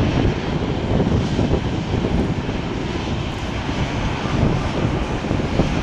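Boeing 737-800's CFM56-7B jet engines running as the airliner moves along the runway: a loud, steady rumble with a hiss on top.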